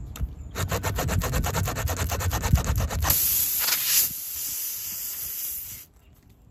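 Steel T-handle rasp of a tyre plug kit worked rapidly in and out of a tyre puncture, a fast scraping at about ten strokes a second. Then a steady hiss of air from the puncture, which cuts off suddenly near the end.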